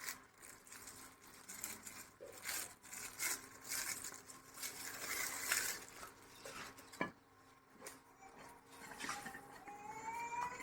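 Irregular rustling and handling noises, with a sharp click about seven seconds in and a rising pitched tone near the end.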